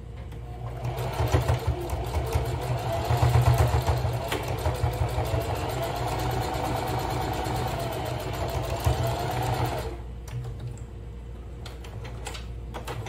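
Sewing machine stitching a seam at a steady fast speed, a rapid even clatter that starts within the first second and stops abruptly about ten seconds in. A few light clicks follow near the end.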